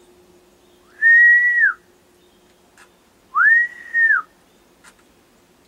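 Two short whistles, about two seconds apart: each is a high, steady tone that slides up at the start and down at the end.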